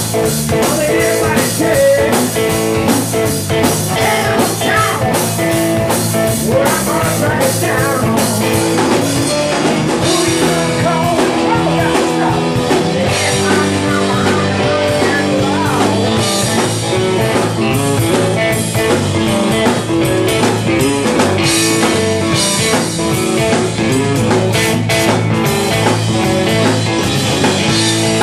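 Blues-rock band playing live: guitar lines with bent notes over a drum kit keeping a steady beat.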